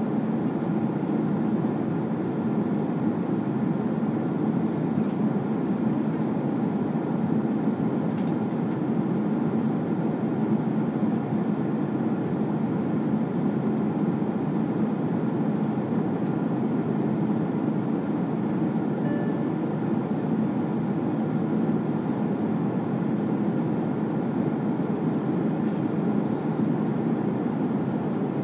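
Jet airliner cabin noise at cruise, heard from a passenger seat: a steady, even low rush of airflow and engines.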